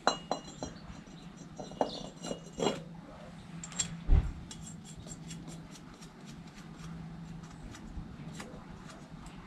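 Tubular steel turbo exhaust manifold being worked by hand onto the cylinder head studs, clinking and knocking metal on metal: several sharp clicks in the first three seconds, a heavier knock about four seconds in, then faint light ticks.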